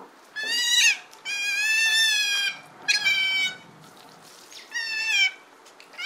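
Otter giving four high-pitched calls, the second the longest at over a second, the last falling in pitch at its end.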